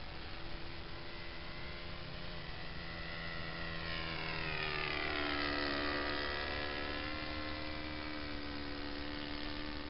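Radio-controlled scale model Zero fighter flying past, its motor and propeller droning. The drone grows louder, peaks about halfway through, and its pitch falls as the plane passes and moves away.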